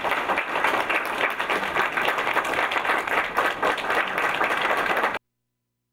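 Audience applauding: dense, steady clapping that cuts off abruptly about five seconds in.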